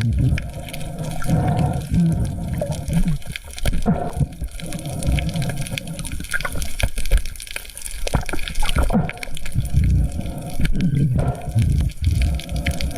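Water splashing and gurgling in irregular surges, with scattered sharp splashes.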